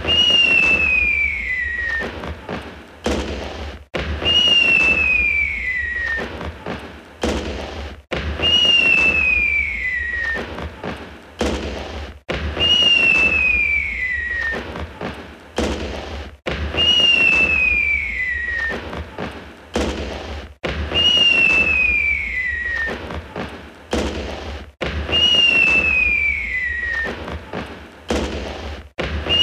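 Fireworks: a whistling firework whose whistle falls in pitch over about two seconds, followed by crackling and sharp bangs. The same short sequence repeats about every four seconds, seven times over, as a loop.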